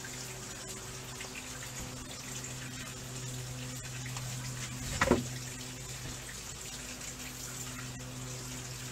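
Garden-hose water running through flushing muffs on an outboard motor, a steady splashing flow while the engine sits unstarted, with one short knock about five seconds in.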